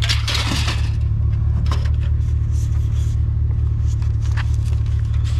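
Vehicle engine idling steadily, with a few scattered light scrapes and clicks over it.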